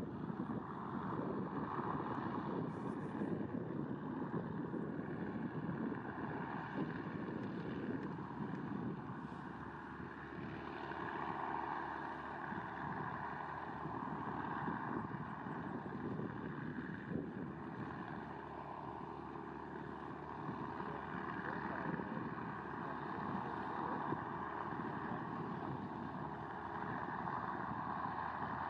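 De Havilland Mosquito's twin Rolls-Royce Merlin V12 engines droning in flight, a steady propeller hum that swells and fades slowly.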